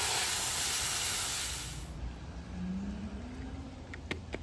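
A loud, even hiss like a spray of water, which fades out about two seconds in; a few faint sharp clicks follow near the end.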